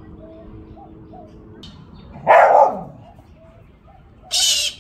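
A dog barks once, loudly, about two seconds in. Near the end a galah gives one short, harsh, high screech.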